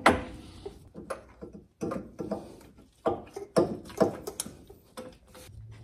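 Mechanical fuel pump on a small-block Chevy V8 knocking and scraping against the engine block as it is worked into position by hand. A sharp clunk comes at the start, followed by irregular lighter knocks and clicks.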